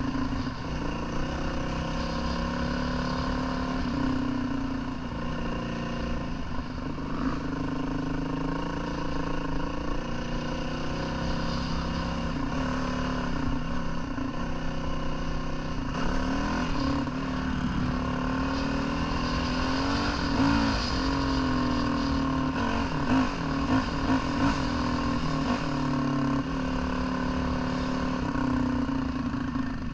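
Dirt bike engine running under way, its pitch rising and falling again and again as the throttle is worked.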